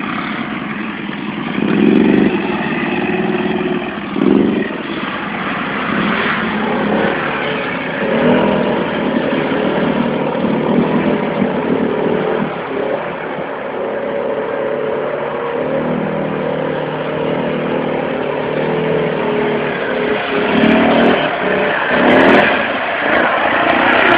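A 2009 Arctic Cat Mud Pro ATV engine revving up and down as the quad churns through deep mud and water, with several louder throttle surges.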